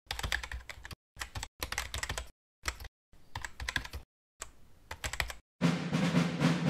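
Computer keyboard typing in about six quick bursts of keystrokes with short pauses between them. Near the end a fuller, denser sound with a low tone comes in.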